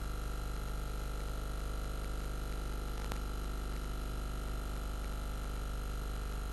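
A steady low mains hum and hiss from an old analogue recording of a silent station endcap, with a faint steady high tone and a single click about three seconds in. No music or voice.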